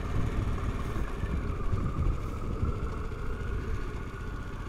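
2023 Harley-Davidson Pan America Special's 1250 cc V-twin running at road speed, heard from the rider's seat as a steady low rumble mixed with wind noise on the microphone.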